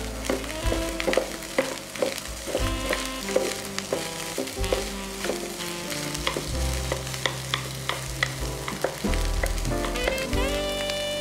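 Fried rice with egg sizzling in a frying pan while a wooden spatula and chopsticks stir and toss it, with many quick scrapes and taps against the pan.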